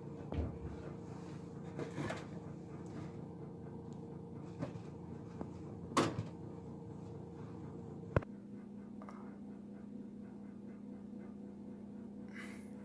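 Steady hum of a kitchen appliance, likely the range hood, under a few knocks and the handling of a cardboard food box. The loudest knock comes about six seconds in. A sharp click follows about eight seconds in, and after it the lower part of the hum grows stronger.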